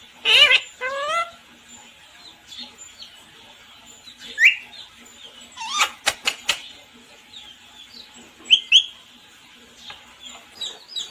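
Pet parrot giving a string of short, separate calls with sliding pitch: a loud call right at the start, single calls about 4.5 and 6 seconds in, followed by a few sharp clicks, two quick calls past 8 seconds, and a run of chirps near the end.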